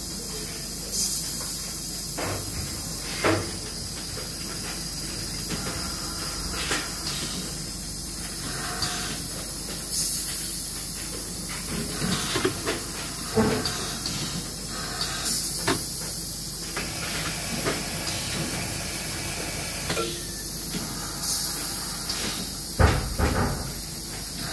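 Steam hissing steadily as it escapes from the pipework of a Steelco VS6/2 steam sterilization unit. A few short knocks sound over it, and the loudest comes near the end.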